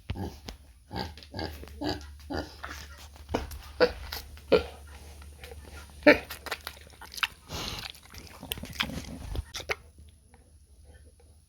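Pig grunting in many short, irregular grunts that stop about ten seconds in.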